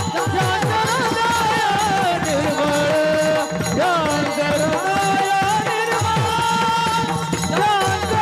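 A man singing a Marathi Warkari abhang in a slow, ornamented devotional melody, over a steady drum beat.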